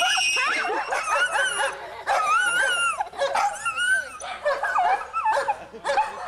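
Small children squealing and shrieking in play: many overlapping high, wavering squeals.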